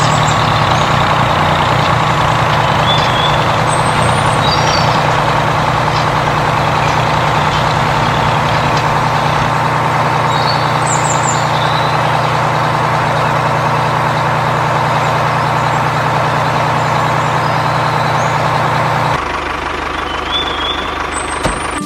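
Tractor engine running steadily, a dubbed-in sound effect for a miniature toy tractor, with a few short high chirps over it. The low drone of the engine drops away about nineteen seconds in.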